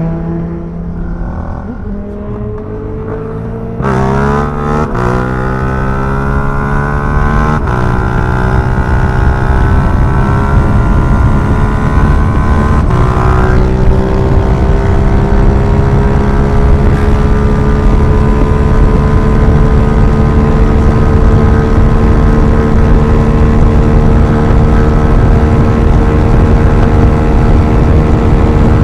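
Yamaha MT-07's parallel-twin engine through an Akrapovič racing exhaust, accelerating hard with three quick upshifts a few seconds in, then pulling in a high gear with a steady note that rises slowly in pitch. Wind rushes under it throughout.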